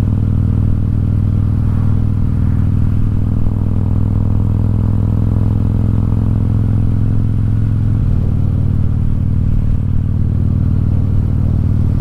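Harley-Davidson Road King's V-twin engine running steadily while the motorcycle cruises on the highway, heard from the rider's seat. The engine note drops slightly about eight seconds in.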